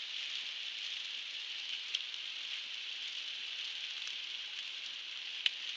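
Heavy rain hitting a car's windscreen, heard from inside the moving car as a steady hiss with a few sharp drop ticks, the clearest about two seconds in and near the end.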